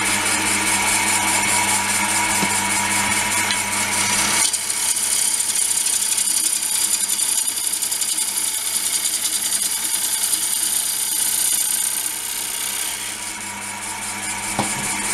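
Small 370 W wood lathe running while a hand-held turning tool cuts a spinning ash bowl blank: a steady motor hum under the hiss and scrape of the cut. The low hum drops away about four and a half seconds in while the cutting noise goes on.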